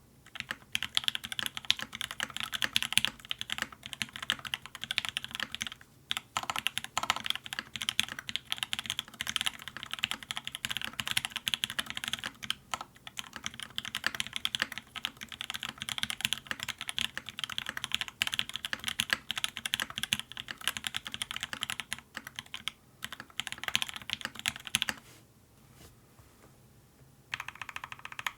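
Fast, continuous typing on a Duck Orion V2.5 mechanical keyboard with lubed and filmed H1 switches, a full aluminium plate and GMK keycaps: a dense stream of key clacks. It pauses for about two seconds near the end, then resumes.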